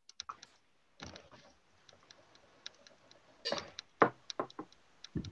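A scattering of light, sharp clicks and ticks, like keyboard or mouse clicks. A few louder clicks come about three and a half to four and a half seconds in.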